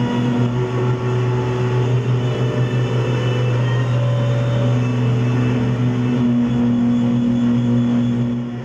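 Electronic drone music: a loud, steady low hum with sustained tones layered over it, one fading out early and another coming in about halfway, over a grainy noise bed. The sound dips briefly near the end.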